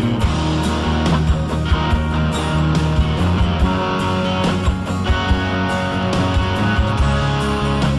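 Background instrumental rock music with guitar and a steady beat.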